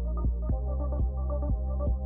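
Electronic background music with a heavy, sustained bass and a steady beat of about four strokes a second.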